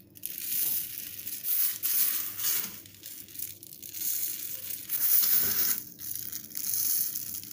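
Dry honey-cake crumbs rustling under the palm as they are pressed and patted by hand onto the cream-coated side of a layered cake. The sound comes in about three long swells.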